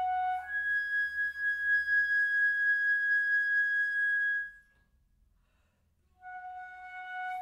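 Solo flute with a wooden headjoint playing long held notes: a middle note leaps up more than an octave to a high note held steadily for about four seconds, which then stops. After about a second and a half of silence the lower note returns and is held.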